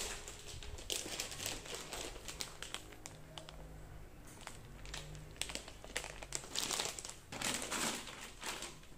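Crinkling and rustling in several irregular bursts, with scattered small clicks of things being handled.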